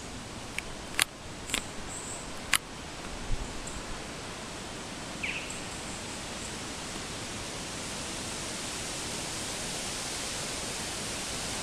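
Steady outdoor background hiss that swells slightly in the second half, with several sharp clicks in the first three seconds and one brief high chirp about five seconds in.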